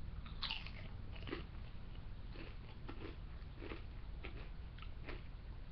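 A person chewing and crunching a mouthful of chips, with short, faint crunches coming irregularly about every half second to a second.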